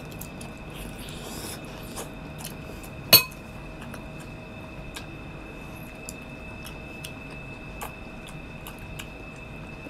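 Close-up eating sounds of someone chewing seedless green grapes: many small wet mouth clicks and smacks, with one loud sharp click about three seconds in. A faint steady high tone runs underneath.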